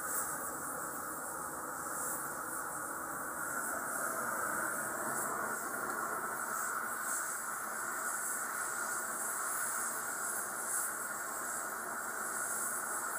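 Gas torch burning with a steady hiss while it heats a steel rod for bending.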